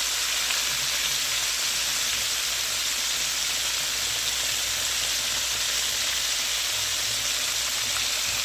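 Flour-and-egg battered catfish frying in hot oil: a steady sizzle.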